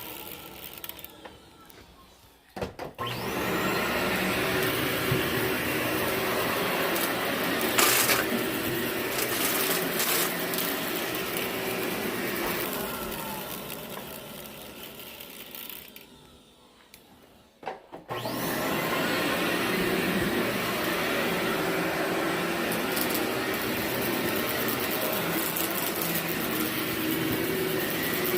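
Vacuum cleaner running over a heavily soiled carpet, with crunching as grit and debris are sucked up. It cuts out twice, about two seconds in and again just past halfway, and each time starts back up with a rising whine as the motor spins up.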